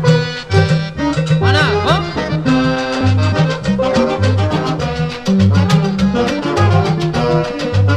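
Instrumental passage of a 1960s Haitian cadence rampa dance band recording: saxophones over a repeating bass line and percussion, with a wavering held note about a second and a half in.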